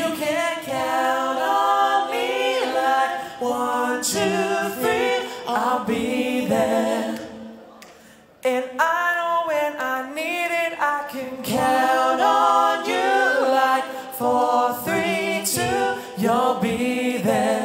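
Three male voices singing a cappella in close harmony through microphones, with a short break about eight seconds in.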